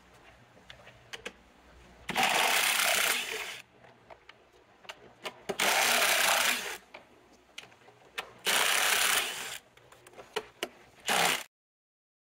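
Makita brushless cordless driver running in four short bursts, the last one brief, as it backs out the small 8 mm intake plenum bolts on a 3.6L Pentastar V6. Light clicks of the tool being set on each bolt come between the bursts.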